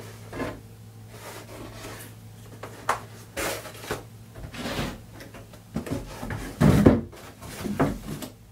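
A stiff foam insert is handled against a hard plastic tool case, lifted out and then set back in and pressed down. It makes a series of short scrapes and knocks, the loudest about seven seconds in.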